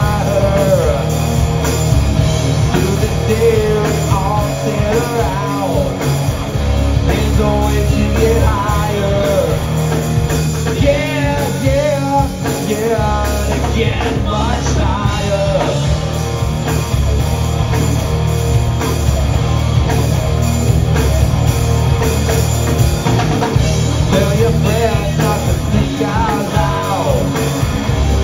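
Live rock band playing electric guitars and a drum kit at a steady, loud level, with a wavering lead melody over the top.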